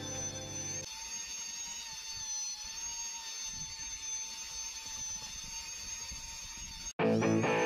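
Cordless handheld brushless vacuum cleaner running on a car's boot carpet, a steady high-pitched whine from its 35,500 rpm motor. Music fades out about a second in, and guitar music cuts in suddenly near the end.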